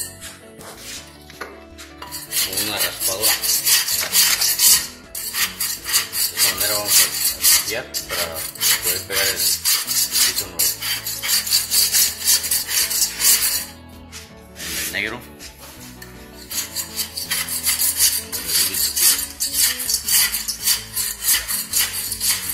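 Corded power chisel with a wide flat scraper blade chattering rapidly as it scrapes glue and wood residue off the subfloor. It stops for a couple of seconds a little past the middle, then starts again.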